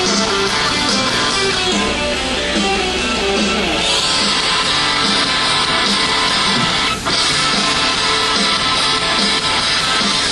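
Guitar-led pop-rock music with a steady beat, with a brief break about seven seconds in.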